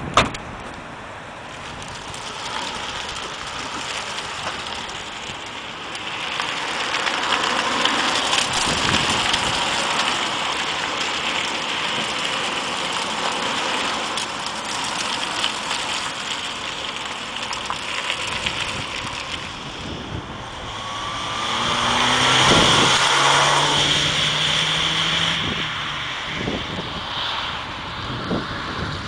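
A car tailgate slams shut at the very start. Then a Nissan Juke 1.6 petrol crossover drives around, its tyre and engine noise swelling and fading under heavy wind on the microphone; about two-thirds of the way through the engine note rises as it accelerates past.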